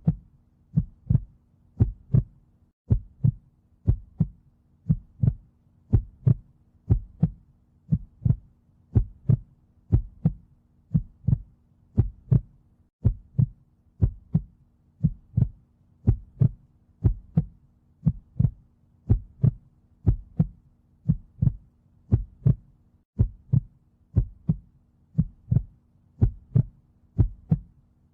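Heartbeat sound, a steady lub-dub pulse: paired low thumps about once a second, with a faint steady hum underneath.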